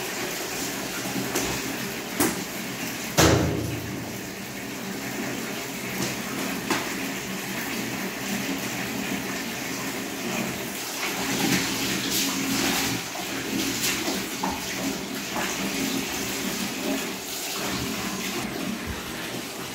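Water running steadily in a small tiled room, with a steady low hum underneath. A sharp knock about three seconds in.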